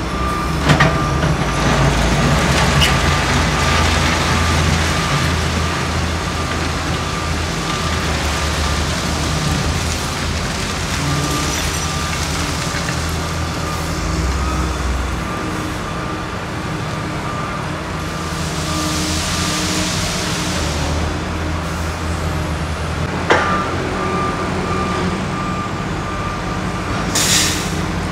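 Diesel engines of excavators working track ballast, running steadily, with a backup alarm beeping repeatedly through the first half and again near the end. A hiss of air lasts about two seconds past the middle, and a few sharp clanks are heard, one near the end.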